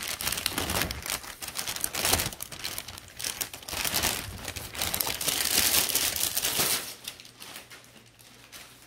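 Thin plastic bag crinkling and rustling in irregular flurries as a laptop is pulled out of it, dying down about seven seconds in.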